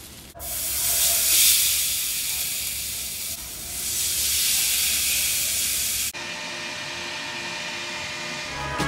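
Loud sizzling hiss of squid and then pompano on a hot grill pan in an oven as they are brushed with oil. About six seconds in it cuts to a quieter, steady simmer of pork liver adobo in a pan.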